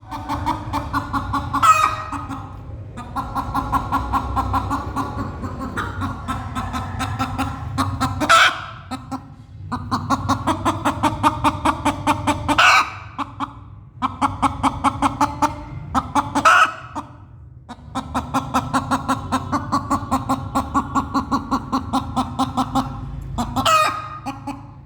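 Hen giving an alarm cackle: long runs of rapid, rhythmic clucks broken about every four to six seconds by a loud, drawn-out squawk that rises and falls, the loudest calls in the run. This is a scared hen's alarm call.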